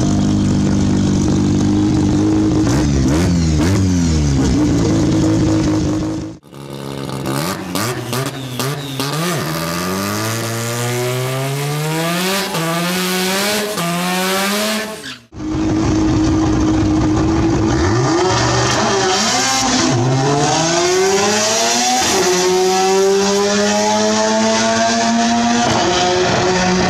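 Chevrolet Nova's 13B rotary engine running at high revs, its pitch climbing again and again as it pulls up through the gears. The sound cuts off abruptly twice, between separate runs.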